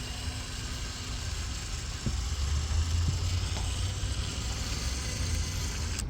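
Power drill with a hole-cutting bit running steadily as it cuts through a plastic dash panel.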